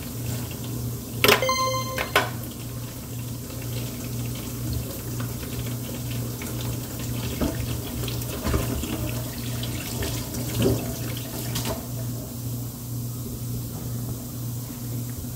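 Kitchen tap running steadily into a stainless-steel sink while a countertop is wiped down. A brief ringing tone sounds about a second and a half in.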